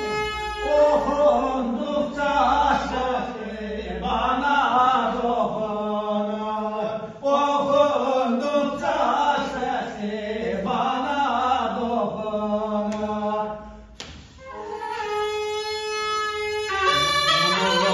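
A man singing a folk melody in a chanting voice, unaccompanied. About fifteen seconds in, the tulum, a Turkish bagpipe, starts playing the melody again.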